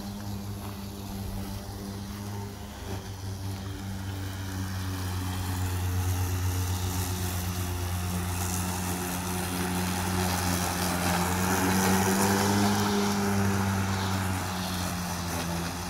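EGO Power+ Select Cut 56-volt brushless cordless electric lawn mower running and cutting tall grass: a steady electric motor and blade hum with a whir of grass being cut, swelling louder from about six seconds in.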